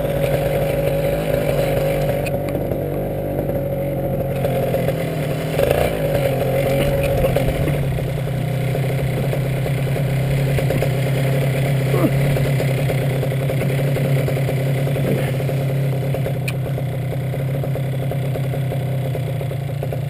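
Paramotor engine and propeller running steadily at an even pitch.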